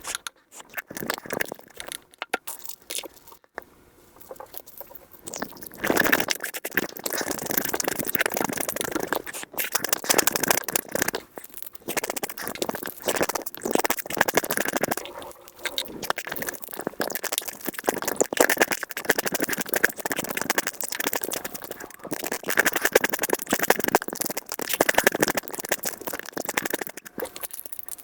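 Close-miked eating sounds of soy sauce marinated crab and rice, played back sped up to a dense, rapid run of chewing, crunching and wet mouth noises. There is a quieter stretch a few seconds in.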